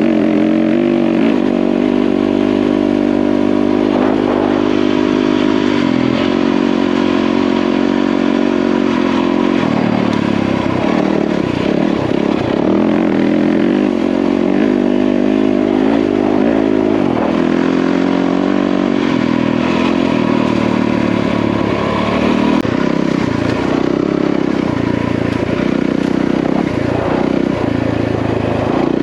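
Yamaha WR450F single-cylinder four-stroke dirt bike engine running under way, its revs repeatedly rising and falling with throttle and gear changes.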